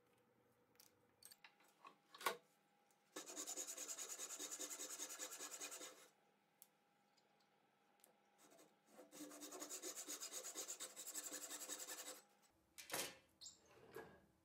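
Japanese pull saw cutting into a small wooden tenon held in a bench vise, in two spells of quick, even strokes of about three seconds each, sawing the slot for a wedge. A few short knocks come before the sawing and again near the end.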